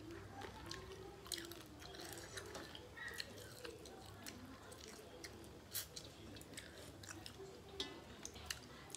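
Faint sounds of people eating rice and fish curry by hand: chewing and wet mouth noises, with short irregular clicks and smacks.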